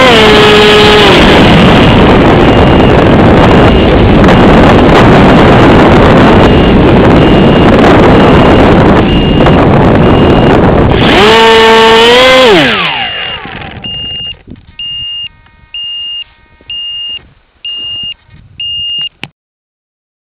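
Electric motor of an AXN RC plane whining, then throttled back about a second in, followed by a loud steady rush of wind over the plane as it glides in. Near the middle the motor briefly revs up and back down. Then the plane is at rest in the snow, it goes much quieter, and a short high beep repeats about every 0.8 s until the sound cuts off.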